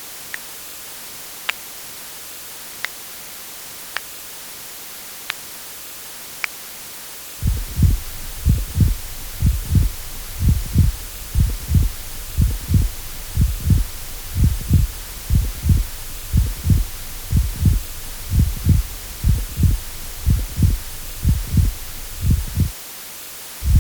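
Heartbeat sound effect: low, muffled thumps in lub-dub pairs, beating steadily from about seven seconds in until shortly before the end. Before it, a few faint sharp ticks about a second and a quarter apart over a steady hiss.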